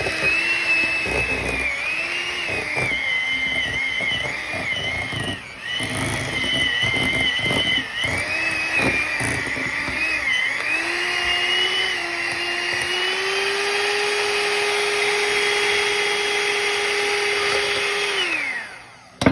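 Electric hand mixer beating a thick cream cheese, cheese and shredded brisket filling: the motor's whine wavers in pitch under the load, with irregular knocks, for about the first ten seconds. It then rises to a steadier, higher whine and winds down as it is switched off near the end.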